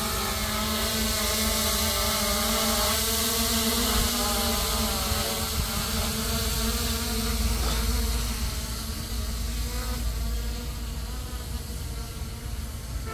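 F11 4K Pro quadcopter drone's propellers buzzing steadily in flight as it climbs away, the whine growing fainter in the second half, over a low rumble.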